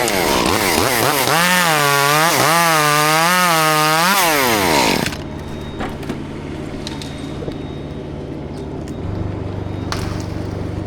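Chainsaw running at full throttle under load, its pitch wavering up and down in an even rhythm as it cuts. About four seconds in the revs fall away and the saw drops off about a second later. A low, steady engine hum carries on underneath and grows louder near the end.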